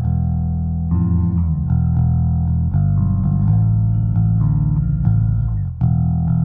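Dunable R2 DE electric bass played through a Kemper amp profile with an Ampeg 8x10 cabinet, both pickups on and the tone knob rolled all the way down: sustained notes and chords, changing every second or so.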